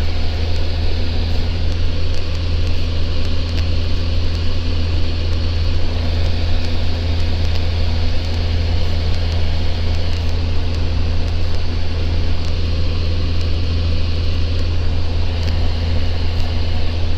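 Steady drone of a Socata TB10's four-cylinder Lycoming engine and propeller in cruise, heard inside the cockpit: a strong low hum under an even rush of air noise.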